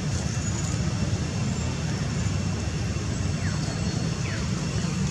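A steady low rumble with a faint hiss over it, even in level throughout; two faint short falling chirps come about three and a half and four and a half seconds in.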